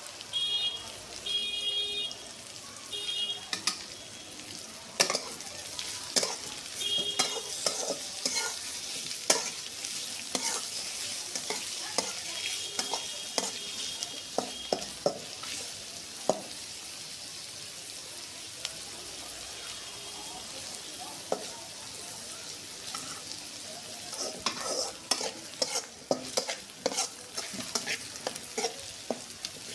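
Liver frying with a steady sizzle, while a metal spatula stirs and scrapes it with frequent sharp clicks and taps. A few short, high chirps of unknown source sound over it in the first few seconds and again about halfway through.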